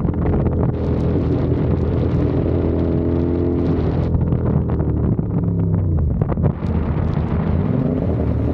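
CFMOTO 450SR's parallel-twin engine and exhaust running under way, its pitch dropping briefly about six seconds in and then climbing again, with wind buffeting the microphone.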